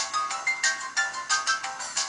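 A stock LG KP500 ringtone playing: a fast melody of short, bright electronic notes, about five a second, with almost no bass.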